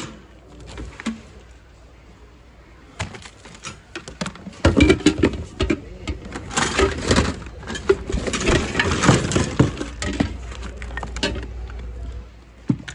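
Hands rummaging through a bin of mixed household junk: plastic cases, cords and odds and ends knocking, clattering and rustling as they are shoved aside. It is fairly quiet at first, then from about three seconds in comes a dense run of short knocks.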